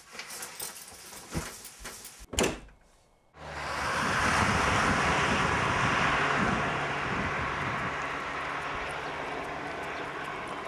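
Clothes rustling and a few small knocks, with a louder thump about two and a half seconds in. After a moment of near silence, a steady rushing outdoor noise starts abruptly and slowly fades.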